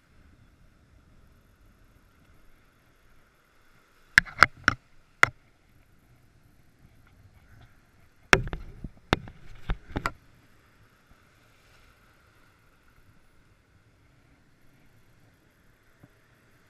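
Faint wash of breaking surf, broken by two clusters of sharp knocks: four in quick succession about four seconds in, and five or so more between about eight and ten seconds in.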